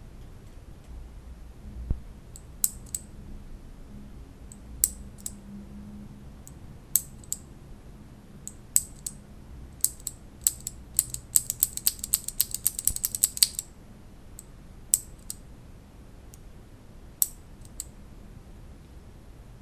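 Mechanical keyboard keys with Cherry MX switches pressed, each press a sharp click: single keystrokes spaced a second or so apart, then a fast flurry of rapid keystrokes a little past the middle, then a few more single presses.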